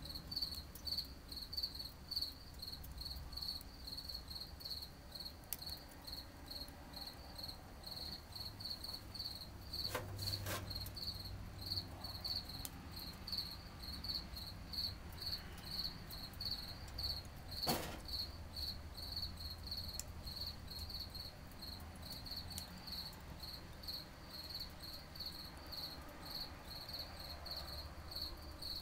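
A cricket chirping steadily, about two chirps a second, with a few sharp clicks, the loudest about two-thirds of the way in.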